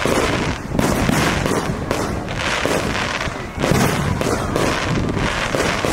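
Aerial fireworks shells bursting in rapid succession, a dense run of bangs. Two louder bursts stand out, one just under a second in and another near four seconds.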